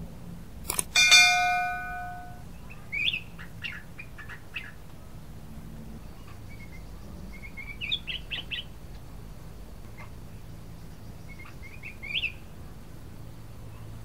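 Caged black-crested bulbul (cucak kuning) giving short, chirpy song phrases in three bouts, about three, eight and twelve seconds in. About a second in, a click and a bright ringing chime are the loudest sounds; they come with an on-screen subscribe-button animation.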